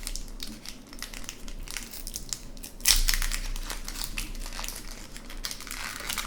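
Foil hockey-card pack being torn open and its wrapper crinkled, with a sharp rip about three seconds in.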